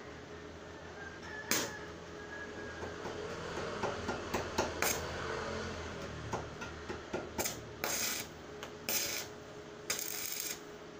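Irregular clicks, clinks and knocks of hand work on a metal hanger overhead, with a sharp click about a second and a half in and several short scraping bursts in the second half.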